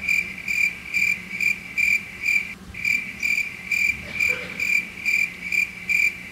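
Cricket chirping, an even chirp repeating a little over twice a second with one brief break, laid over a silent pause as the 'crickets' gag for awkward silence.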